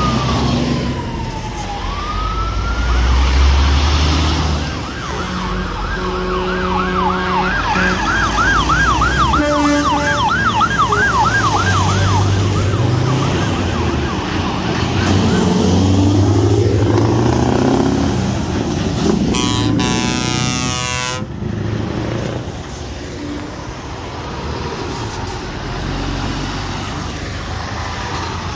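Heavy Scania lorries driving past one after another, diesel engines rumbling. A siren wails in a fast up-and-down yelp for several seconds early on, and about two-thirds of the way through a horn sounds for about two seconds.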